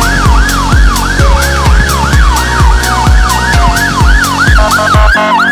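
Fire engine siren on a fast yelp, its pitch sweeping up and dropping about three to four times a second, with a second siren overlapping near the end. Under it runs background music with a steady drum beat and bass that stops about five seconds in.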